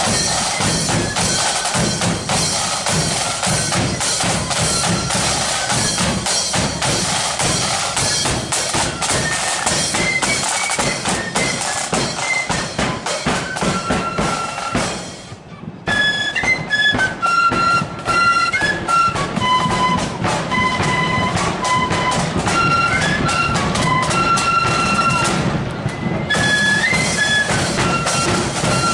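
A marching flute band playing: side drums beating a steady, dense rhythm under a flute melody. The sound cuts out for a moment about halfway through and again briefly near the end.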